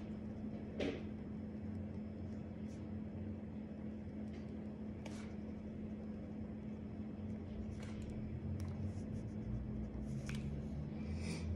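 Faint scratches of a pen writing on paper, a few short strokes scattered among quiet stretches, over a steady low electrical hum.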